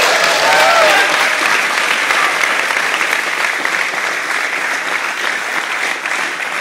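Large audience applauding loudly, with a few whoops and cheers in the first second.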